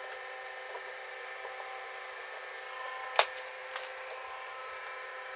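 Small hand clamps being handled on a wooden build board: one sharp click about three seconds in, with a few fainter clicks and taps around it, over a steady hum.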